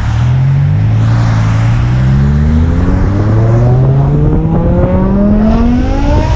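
Straight-piped BMW M6's V10 accelerating hard, heard from inside the cabin, its exhaust note climbing steadily in pitch through one long pull. The exhaust runs straight through with only the primary catalytic converters left.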